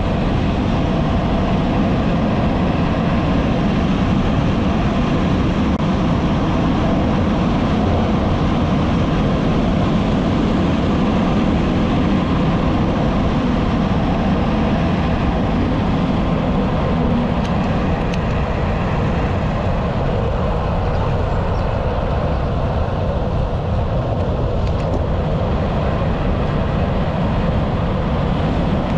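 Steady rushing wind noise on the microphone of a camera mounted on a moving bicycle, mixed with road noise from rolling along smooth asphalt.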